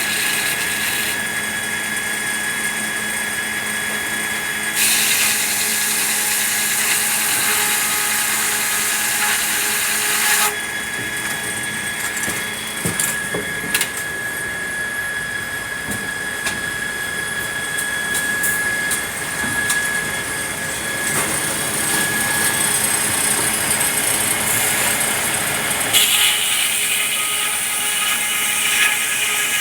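Sawmill machinery running with a steady hum and whine while a saw cuts through red pine. The cutting noise gets louder about five seconds in, again about twenty seconds in, and near the end.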